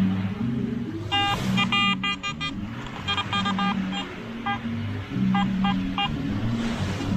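Metal detector sounding short, repeated target beeps as its coil is held over the dug hole: the sign of metal still in the hole. A quick run of beeps comes about a second in, then single beeps spaced out. Steady background music plays underneath.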